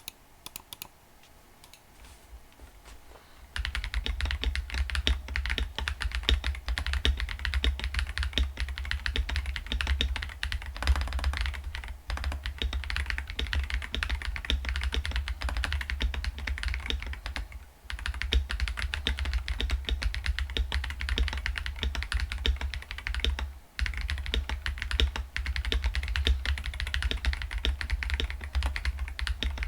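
Typing on a KBD67 Lite R1 mechanical keyboard with Glorious Panda 67g tactile switches and OEM-profile PBT keycaps. A few scattered key clicks come first, then about three and a half seconds in a fast, dense run of keystrokes starts and carries on, with a few short pauses.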